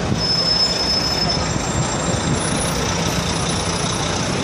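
Busy city street ambience: steady traffic noise from cars and buses with crowd voices mixed in. A thin high-pitched squeal starts just after the beginning and lasts about a second, with a fainter high tone after it.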